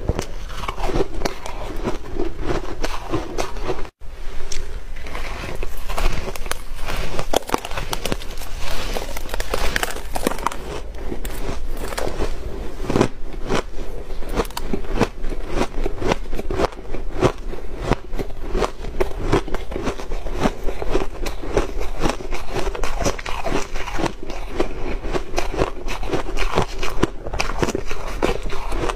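Crisp crunching and crackling of a block of refrozen shaved ice being bitten and chewed, with dense crackles throughout and a brief break about four seconds in.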